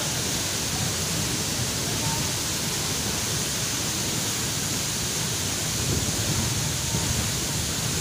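A tall waterfall, about 30 to 40 metres high and in heavy flow, falling into its plunge pool: a steady, even rush of water.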